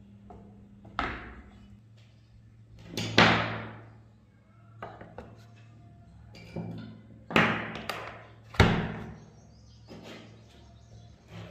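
Rusty steel light-machine-gun parts being set down one by one in a plastic tub: a run of hard knocks and clatters, five of them loud, each ringing briefly. A steady low hum runs underneath.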